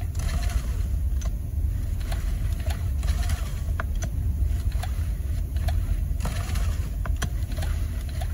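Stihl 4-MIX four-stroke engine running steadily with its valve cover off and the freshly adjusted valves working, a steady low rumble with a sharp tick every second or so.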